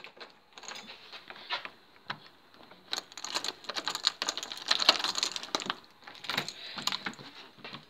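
A bunch of keys rattling and clicking in irregular bursts. The sound is sparse at first and grows busy from about three seconds in until near the end.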